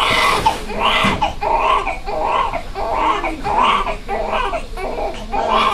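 Newborn baby crying in a steady series of short, repeated wails, about one and a half a second.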